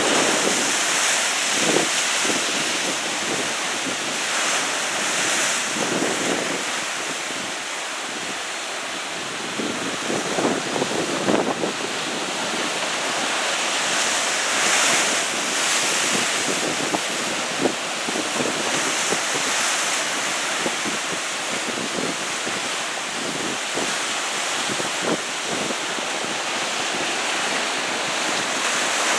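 Ocean surf breaking and washing ashore, a steady rush that swells and eases every few seconds, with wind buffeting the microphone.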